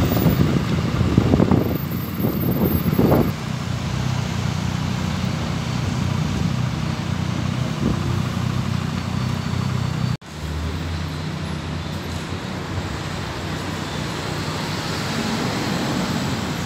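City bus engines running as buses pull away and turn through a junction, with steady traffic noise, louder in the first few seconds. About ten seconds in the sound breaks off briefly and resumes with another bus passing.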